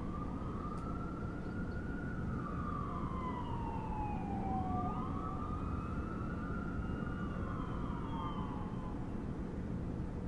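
Emergency-vehicle siren wailing, its pitch slowly rising and falling twice over several seconds, above a steady low rumble of city traffic.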